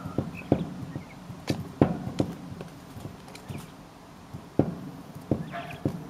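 Coturnix quail pecking at a hanging cucumber end. Their beaks strike the cucumber and the hard surface behind it in about eight sharp, irregular knocks.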